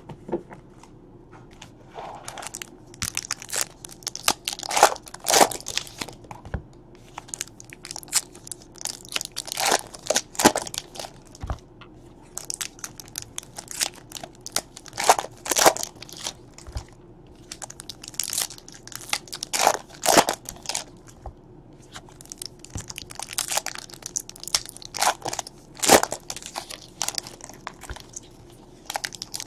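Wrappers of 2017 Panini Donruss baseball card packs crinkling and tearing as they are ripped open one after another, in irregular bursts of sharp crackles.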